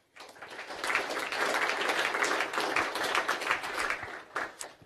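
Audience applause that builds up quickly and then tapers off near the end.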